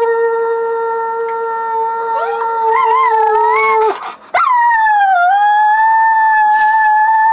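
A man howls a steady, held note and a miniature schnauzer joins in with a wavering howl. After a short break about four seconds in, the dog alone holds a long, higher-pitched howl that dips once and then steadies.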